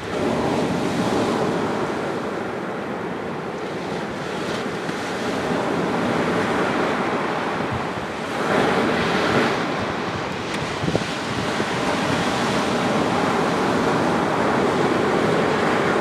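Sea waves breaking and washing up a sandy beach in a slightly rough surf, a continuous rushing that swells with a bigger wave about halfway through.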